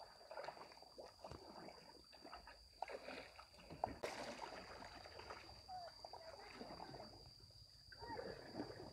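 Faint water splashing and paddling from a raft on a river, with a steady high-pitched whine and distant voices.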